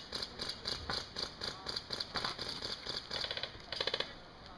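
Airsoft guns firing: a steady run of sharp shots at about four a second, then a loud, rapid full-auto burst near the end.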